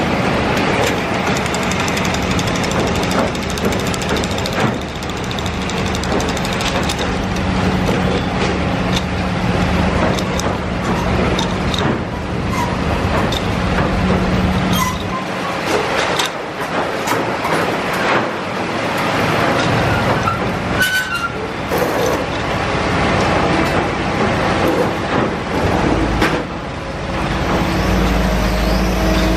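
Railway track-laying machine at work: a steady engine drone with frequent metallic clanks and knocks, and a deeper rumble coming in near the end.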